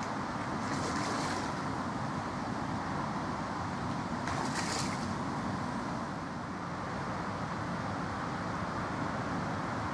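A hooked common carp splashing briefly at the surface as it is played in close to the bank, twice: about a second in and again near the middle. Under it runs a steady rumbling background noise.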